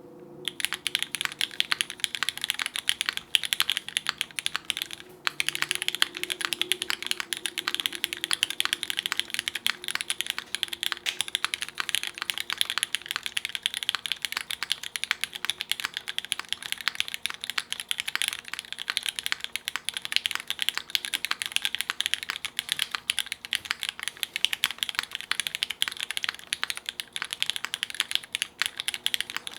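Typing on a top-mount KFE CE custom mechanical keyboard with lubed Cherry MX Hyperglide Black linear switches, a polycarbonate plate and GMK keycaps: a fast, continuous clatter of keystrokes, with a brief pause about five seconds in.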